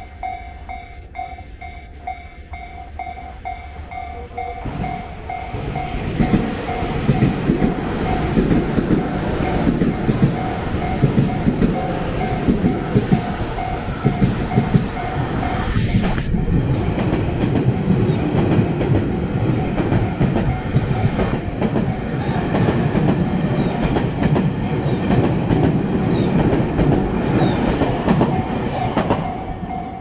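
Japanese level-crossing warning bell ringing in a fast, steady repeated clang while a Tobu Tojo Line train passes, its wheels clattering over the rail joints. The bell stands out clearly at first; the train noise builds about five seconds in and fades near the end, when the bell is heard plainly again.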